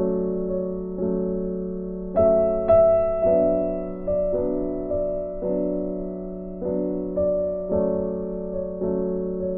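Background music: slow piano chords, each struck about once a second and left to fade.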